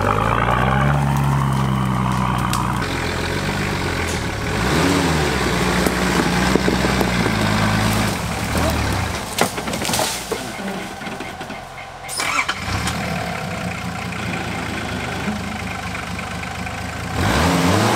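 Off-road 4x4 engine running at low speed, its revs rising and falling as the vehicle crawls along the trail. It goes quieter for a few seconds midway, with a few clicks and knocks, then revs up again near the end.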